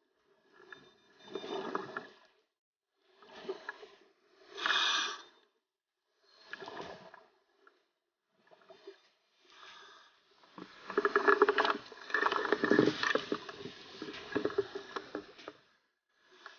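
Scuba regulator breathing heard underwater: several short breaths, then from about ten seconds in a long spell of crackling exhaust bubbles.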